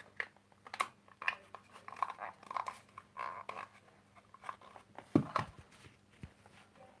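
Irregular light clicks and taps at close range, with one louder, duller knock about five seconds in.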